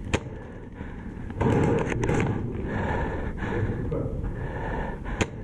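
Rustling handling noise from gear and clothing, then a sharp snap near the end: a shot from a Novritsch SSG24 spring-powered airsoft sniper rifle.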